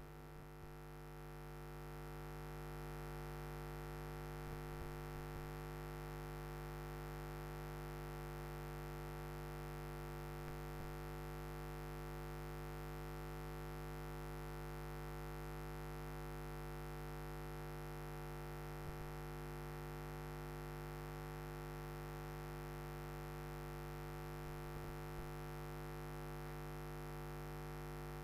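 Steady electrical hum and buzz: a low mains-type hum with a stack of higher overtones, like a ground-loop buzz on an audio line. It fades in over the first few seconds and cuts off near the end, with a few faint clicks.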